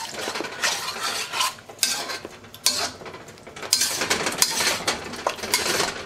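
Metal wok spatula scraping and stirring through sauce in a wok, a run of irregular scrapes and clinks, as cornstarch slurry is stirred in to thicken the sauce.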